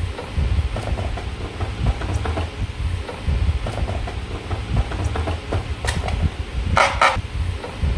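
Slime being handled and squished, with scattered small sticky clicks and pops over a steady low rumble. There is a brief, louder crackling rustle about seven seconds in.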